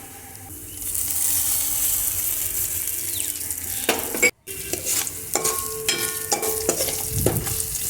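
Crushed garlic and tempering spices sizzling in hot oil in a kadai, stirred with a spoon that scrapes and clinks against the pan. The sizzle starts about a second in and cuts out briefly a little past halfway.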